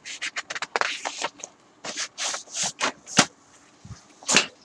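HP DeskJet GT 5810 ink-tank printer printing its head-cleaning results page after a cleaning cycle on a clogged print head: an irregular run of short scraping, swishing sounds from the carriage and paper feed.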